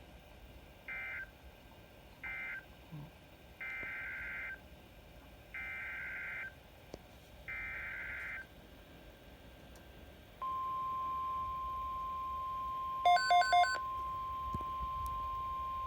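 Emergency Alert System SAME data bursts: short end-of-message bursts, then three longer header bursts about two seconds apart that open the next alert. About ten seconds in, the steady 1050 Hz NOAA Weather Radio alert tone starts and holds, with three quick beeps over it a few seconds later.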